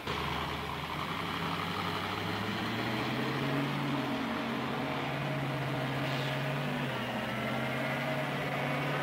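Engine of a large coal haul truck running, its pitch stepping up and down several times as it changes speed.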